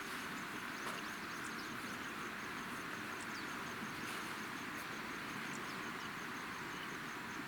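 Steady rush of a flowing stream, with short high bird chirps now and then and a fast, even high-pitched pulsing call above it.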